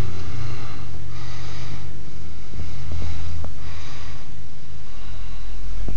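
Breathing close to the microphone, a hissy breath roughly every two and a half seconds, over a steady low rumble.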